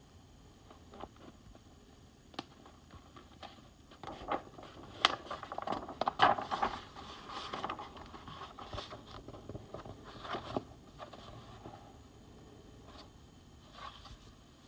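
Pages of a paperback picture book being handled and turned: scattered light taps and paper scrapes, with a louder rustle of a page turning about five to seven seconds in.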